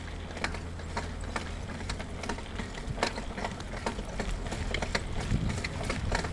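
Bicycle rolling over a rough dirt trail, its parts rattling in sharp irregular clicks, about two or three a second, over a steady low rumble.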